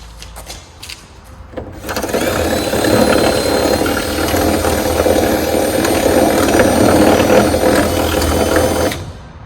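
Power drill running under load for about seven seconds, drilling a hole through a carbon fiber hood for a hood pin; it starts about two seconds in and stops abruptly near the end, after a few light clicks.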